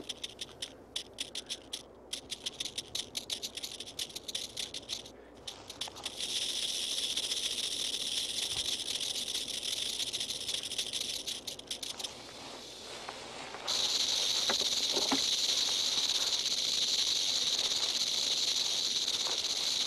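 Western diamondback rattlesnakes rattling. The sound starts as irregular clicking, becomes a continuous high buzz about six seconds in, fades briefly, and returns louder about fourteen seconds in. It is the defensive warning of snakes irritated at being moved out of the way.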